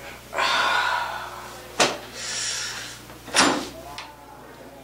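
A loud breathy rush for about a second, then two sharp knocks about a second and a half apart and handling noise as a heavy wooden door's metal lever handle and latch are worked to open it.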